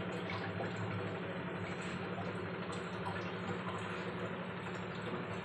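Besan pakoras deep-frying in mustard oil in a clay kadhai, the oil sizzling steadily, over a low steady hum.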